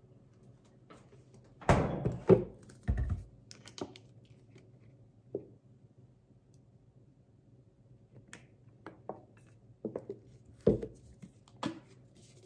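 Kitchen handling sounds: a few heavy thumps about two to three seconds in, fitting a refrigerator door shutting and things set down on the counter, then scattered lighter clicks and knocks, with a plastic bottle's flip-top cap clicked open near the end.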